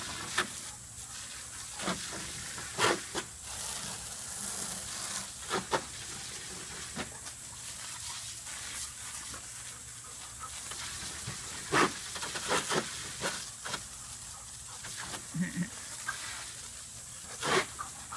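Garden hose spray hissing steadily, with short sharp sounds now and then and a dog panting as it chases the water stream.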